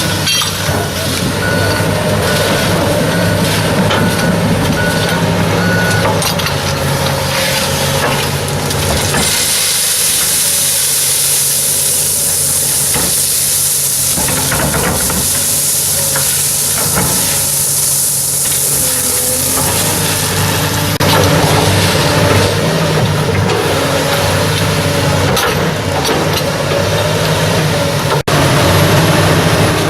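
Heavy work machine's engine running steadily, with a loud steady hiss taking over from about nine seconds in to about twenty seconds in.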